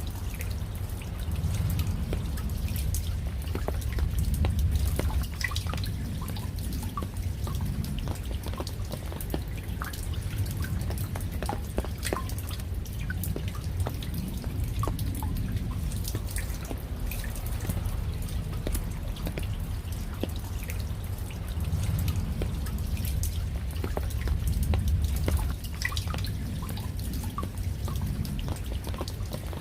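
Raindrops dripping irregularly, many separate small drops ticking, over a low rumble that swells twice.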